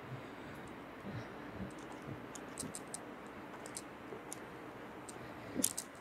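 A candle burning in a glass jar, its wick crackling in short, sharp ticks at irregular intervals over steady, faint background noise. A slightly louder crackle comes near the end.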